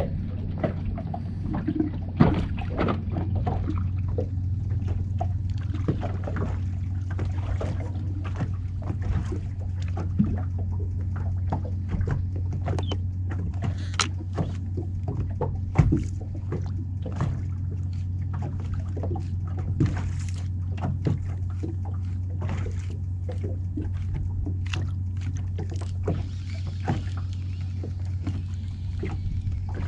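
A boat's motor running steadily with a low, even hum, with scattered clicks and knocks over it.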